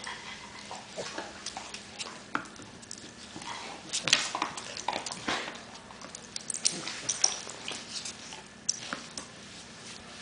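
Beagle playing with a tennis ball on a hard floor: scattered clicks and knocks of claws and ball on the floor and the rustle of towels, with a louder knock about four seconds in.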